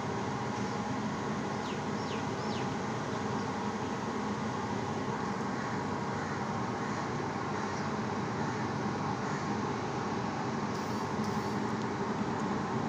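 Steady urban street background noise, an even traffic-like hum, with a few short high bird chirps about two seconds in.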